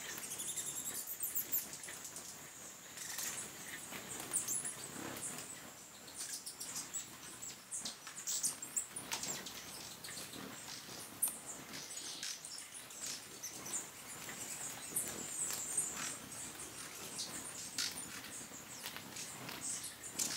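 Hummingbirds at a nectar feeder giving many short, high squeaky chips and twitters, with the whir of their wings as they hover and chase each other. A thin steady high tone runs underneath.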